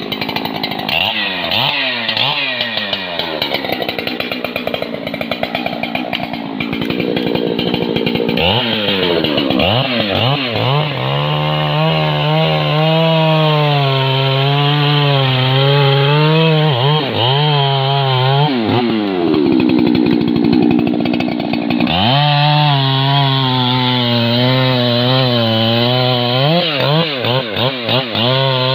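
Husqvarna 3120 XP two-stroke chainsaw cutting into the base of a trembesi (rain tree) trunk. The engine revs rise and fall repeatedly, then hold high and steady for several seconds at a time, dropping back in between.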